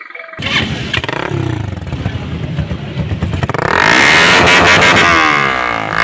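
Hi Speed Infinity motorcycle's single-cylinder engine running, heard at its exhaust muffler. It starts suddenly about half a second in, gets louder about three and a half seconds in, and is revved up and down toward the end.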